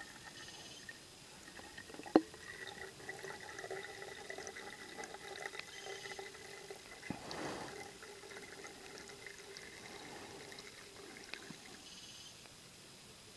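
Water trickling faintly through a double-layered t-shirt in a cone coffee filter into a steel bottle. A single sharp knock about two seconds in is the loudest sound, with a smaller one about seven seconds in.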